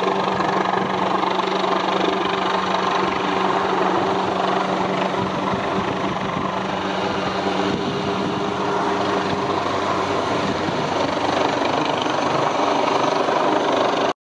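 Search-and-rescue helicopter hovering over the sea, its rotors and turbine engines making a steady drone. A low hum in the sound drops away about ten seconds in.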